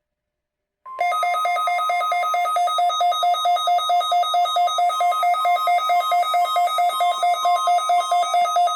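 Weather radio emergency alert tones for a test tornado warning. A steady high 1050 Hz warning alarm tone starts about a second in, overlaid with a fast two-note electronic beeping about four times a second.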